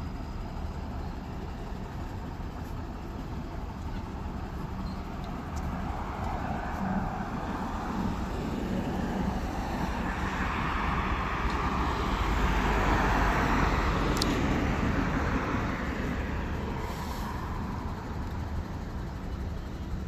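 City street traffic: a road vehicle passing close by, its engine and tyre noise swelling over several seconds, peaking with a deep rumble, then fading away.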